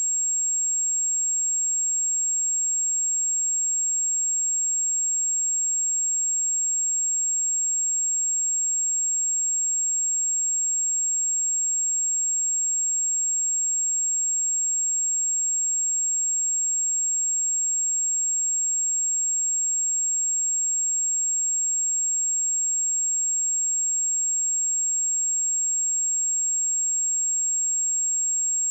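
A pure 7556 Hz sine-wave test tone: a single steady high-pitched whistle at constant level, with no other sound.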